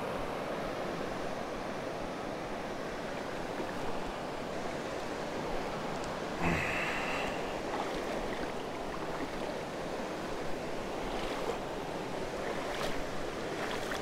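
Shallow rocky creek running, a steady rush of water over stones close by, with a brief louder sound about six and a half seconds in.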